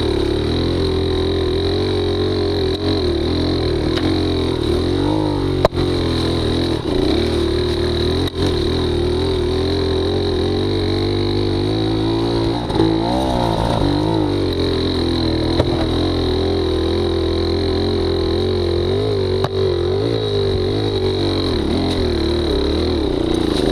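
Small two-stroke engine running steadily, its pitch wavering slightly, with a few brief dips in loudness.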